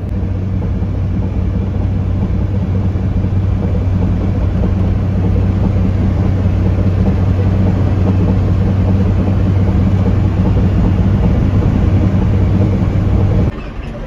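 Vehicle on the move: a steady low engine drone with road noise, cutting off suddenly near the end.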